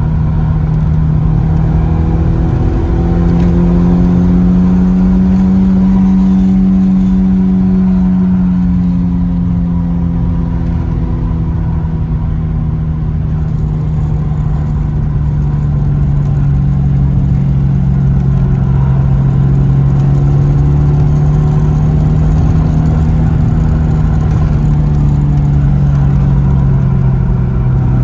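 BMW E36 engine running while the car cruises on the road: a steady engine note that rises briefly about three seconds in, then slowly drops away as the car eases off.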